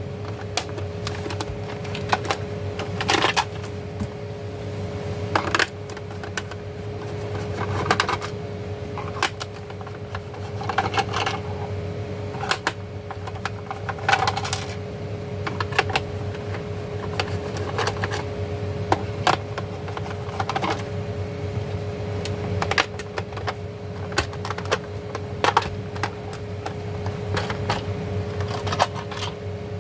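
Irregular clicks and light knocks, every second or two, from small parts being handled while an emergency light is taken apart to get at its battery, over a steady low hum.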